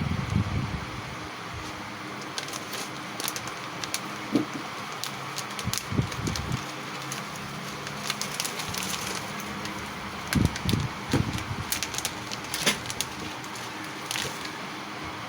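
Food-preparation handling noises: scattered crackling clicks and a few soft thumps, over a steady background hum.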